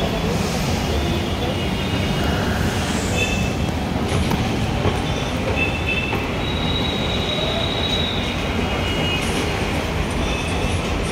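Steady, loud metro-station rumble heard while riding an escalator, with short high-pitched squeals coming and going, like rail wheels or brakes.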